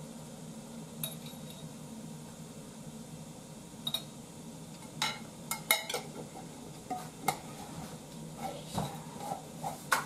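Metal spoon clinking and scraping against a glass jar, a scatter of sharp clinks through the second half, loudest a little past the middle, over a steady low hum.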